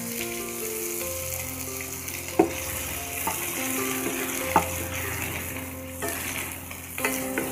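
Freshly added chopped onions sizzling in hot oil in a nonstick frying pan as they are stirred with a wooden spatula, with two sharp knocks of the spatula against the pan about two and a half and four and a half seconds in. Soft background music plays underneath.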